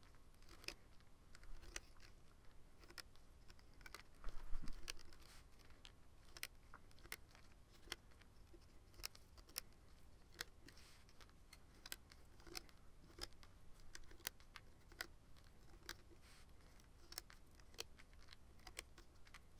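Faint, irregular clicks and taps of rubber loom bands being stretched onto the plastic pins of a Rainbow Loom, with a slightly louder cluster about four seconds in.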